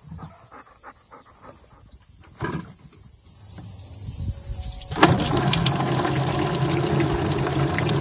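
A dog sniffing at the ground. Then water from a garden hose starts pouring into an emptied plastic water trough, swelling and then splashing steadily and loudly from about five seconds in.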